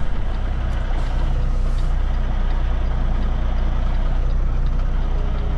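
Kenworth semi truck's diesel engine running steadily at low revs, heard from inside the cab, as the rig slowly reverses a trailer into place.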